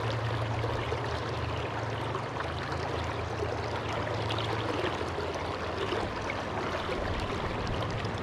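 Steady rush of fast-moving river water around a wading angler, an even sound with no distinct events.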